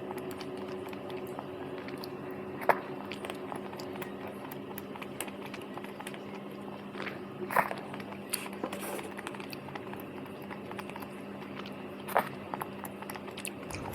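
Quiet eating of tteokbokki rice cakes: a few short sharp clicks and soft mouth sounds over a steady low hum.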